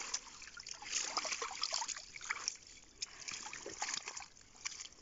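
Water trickling and splashing off a wet fishing net as it is lifted and worked by hand in shallow water, with small irregular drips and crackles.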